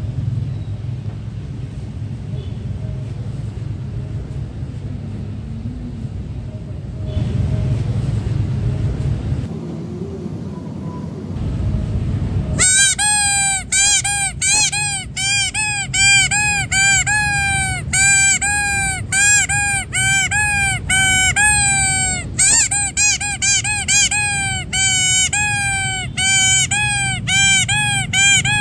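Yellow rubber duck toy squeezed by hand over and over, giving a quick run of high, honk-like squeaks, about two a second, that starts about halfway through and pauses briefly near the end. Before the squeaks there is only a low rumbling noise.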